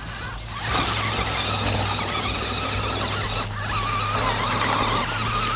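Electric motor and drivetrain of an FTX Ravine RC rock crawler whining under load as it tries to climb a log, the pitch wavering with the throttle. The whine starts about a second in and briefly drops out around the middle. Tyres spin in the stream and throw up water.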